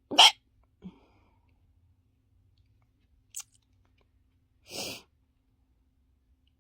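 A person hiccups once, short and loud, right at the start. A faint low blip follows under a second later, then a sharp click about three seconds in and a short breathy rush near five seconds.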